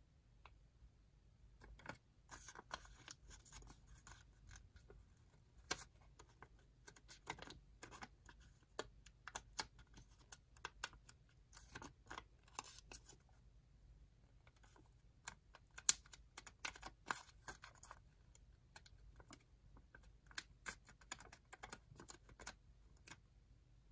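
Origami paper being folded and creased by hand: irregular light crinkles, rustles and small crackles as the corners of a small paper strip are folded in and pressed flat with the fingers, starting about two seconds in, with one sharper crackle about two-thirds of the way through.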